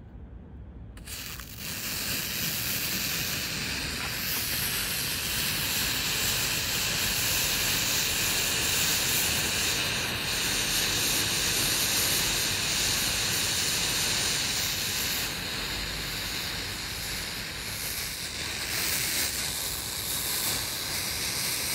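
A small piece of xylitol–potassium nitrate rocket candy, sprinkled with sucrose rocket fuel to get it lit, burning with a steady hiss that starts about a second and a half in.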